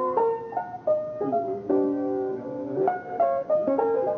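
Jazz instrumental music with piano playing a quick line of notes over chords.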